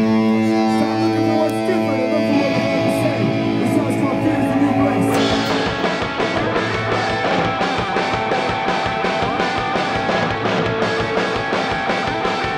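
Punk rock band playing live on electric guitars and bass. Guitar chords ring out held at first, then about five seconds in the full band comes in with a fast steady beat.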